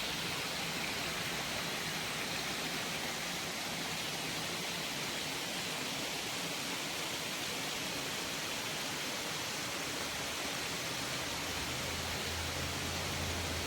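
Waterfall running steadily: an even rush of falling water.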